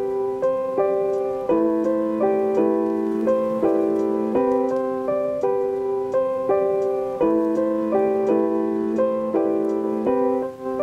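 Background music: a light melody of notes changing about twice a second over longer held lower notes.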